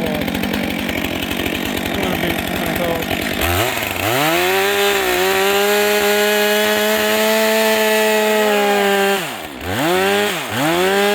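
Gasoline chainsaw idling, then throttled up to full speed and held there for about five seconds before dropping back and being revved twice more near the end.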